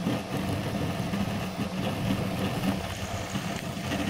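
Folgertech Kossel delta 3D printer running flat out at five times its set print speed, its stepper motors making a busy warble of short, rapidly shifting tones as the hotend darts back and forth laying infill. At this speed the infill is coming out poorly.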